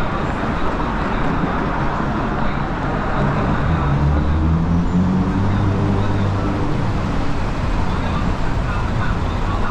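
Busy city street ambience: steady traffic noise with indistinct voices of passers-by. A vehicle's engine runs close by from about three to seven seconds in.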